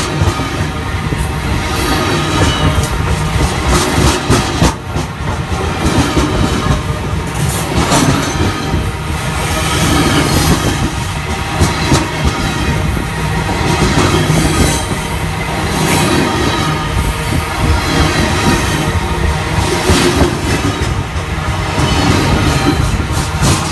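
A train's wheels running over rail that has been ground, a loud continuous rolling noise with scattered clicks.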